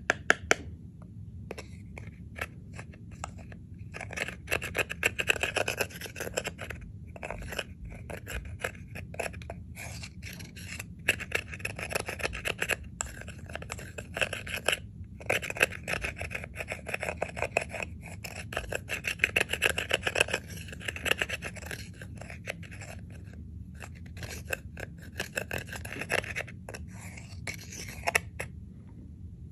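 Slime being kneaded and stretched by hand, giving off dense runs of sticky clicks and pops with short pauses between, over a low steady hum.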